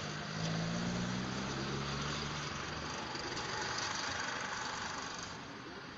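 A motor vehicle's engine running, a steady low hum for the first couple of seconds, then a rushing noise that swells and fades away near the end.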